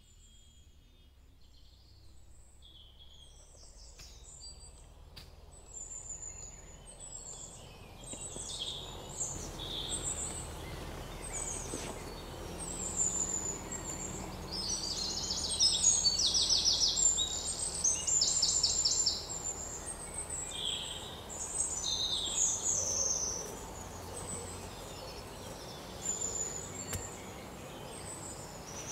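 Forest birds calling: many short high chirps, with a rapid repeated trill that is loudest about halfway through, over a steady background hiss that fades in over the first several seconds.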